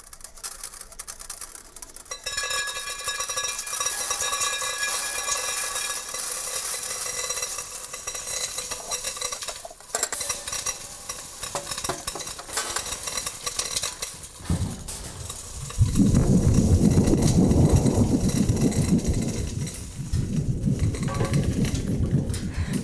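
Homemade thunderstorm sound effect: dry rice and peas pouring into a stainless steel pot and onto a metal tray make a hissing patter like rain, with the pot ringing. About two-thirds of the way in, a loud low thunder rumble starts, made by shaking a thin metal sheet, and it swells again near the end.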